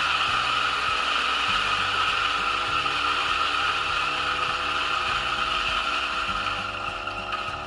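DF64E 64 mm flat-burr electric coffee grinder with its stock burrs running, grinding a single 18 g dose of coffee beans: a steady high whir that grows a little quieter near the end.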